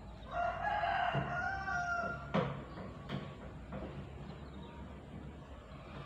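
A rooster crowing once, one long call of about two seconds that drops at the end, followed right after by a sharp knock and a fainter click.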